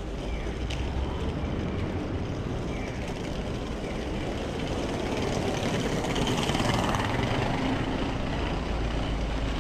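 Street traffic: a steady rumble of vehicles that swells as a large vehicle passes, loudest about two-thirds of the way through.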